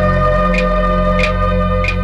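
Background film music: held organ-like keyboard chords over a low drone, with a light percussive tick about every two-thirds of a second.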